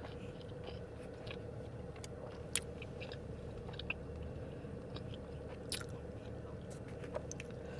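Close-up chewing and biting on a barbecued pork rib: scattered short mouth clicks and smacks over a steady low hum.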